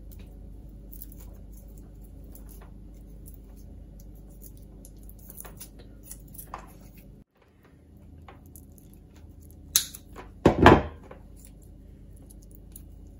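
Faint handling sounds of a coaxial cable being stripped back by hand, small ticks and rustles over a low steady hum. About ten seconds in there is a sharp click, then a louder knock.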